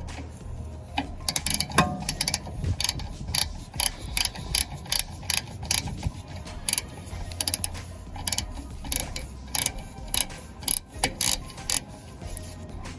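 Ratchet wrench clicking in short repeated strokes, used to loosen a 6 mm hex bolt on a rotary screw air compressor.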